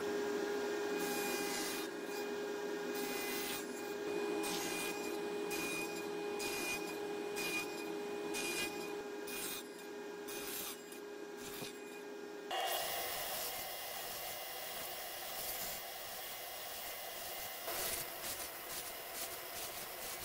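Table saw running with a steady hum while a board is pushed over the blade again and again, nibbling out the waste of a half lap joint in a rapid series of short cuts. About two-thirds through, the sound changes abruptly to a sliding miter saw running and cutting into the wood.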